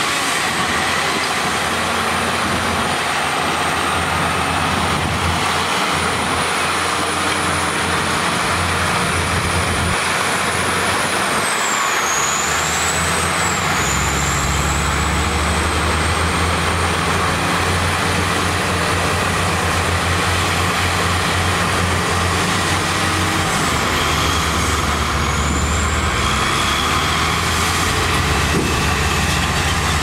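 Shantui SD16L crawler bulldozer's diesel engine working as it pushes dirt, with a high whine that holds steady and dips in pitch twice. The deeper engine note grows louder about halfway through.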